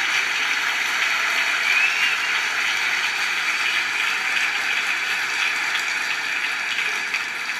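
Audience applauding: steady, dense clapping from a large hall, heard through a computer's speaker, starting to die down near the end.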